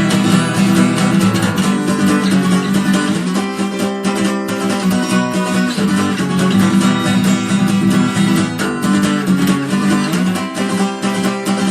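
Guitar strummed steadily through an instrumental break in a song, chords ringing without a voice.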